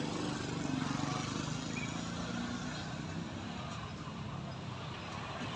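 Steady hum of road traffic with motor engines running, the background sound of a city railway line with no train passing.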